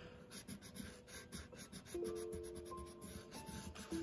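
A coloured pencil scratching across paper in a quick run of short back-and-forth strokes. Soft background music notes come in about halfway.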